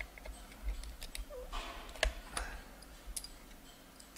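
Scattered small clicks and ticks of a precision screwdriver turning out the screws of a remote control's circuit board, with light handling of the plastic case. The sharpest click comes about two seconds in.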